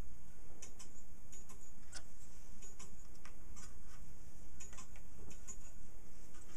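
Clock ticking: sharp clicks, about two a second and not quite evenly spaced, over a steady low hum.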